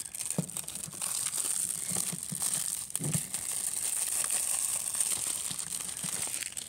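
Clear plastic shrink wrap being torn and peeled off a Blu-ray case: a continuous run of crinkling and crackling.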